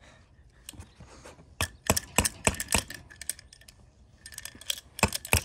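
Sharp metallic taps and clinks of a hammer striking a Pecker aid-climbing hook against the tightly inflated G7 Pod portaledge, an attempt to puncture it. The taps come in a quick run from about a second and a half in, and again in a short cluster near the end.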